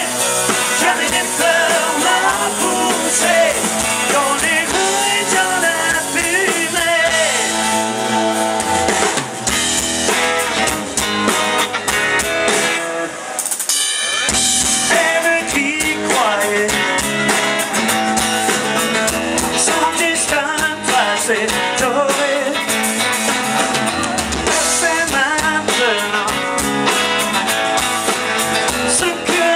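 Live rock band playing loudly through a stage sound system: electric and acoustic guitars, bass guitar and drum kit, with singing at times. The music thins briefly about halfway through, then carries on.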